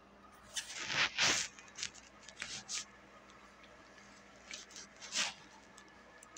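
Several short bursts of rustling and scraping noise, a cluster in the first three seconds and another about five seconds in, over a faint steady hum.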